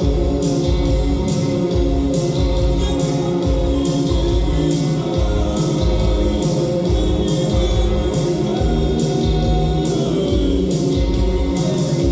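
Live band playing loud music, with a steady drum beat, cymbals and electric guitar under a singing voice.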